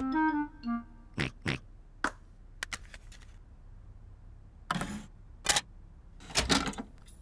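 Cartoon pig grunts, two of them about a second and a half apart in the second half, after several sharp clicks. A short run of musical notes sounds right at the start.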